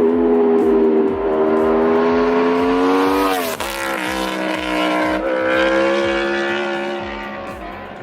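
Aprilia motorcycle's 999 cc 65-degree V4 engine at high revs, its pitch climbing steadily. The pitch drops sharply at a gear change about three and a half seconds in, then climbs again and holds. It fades toward the end.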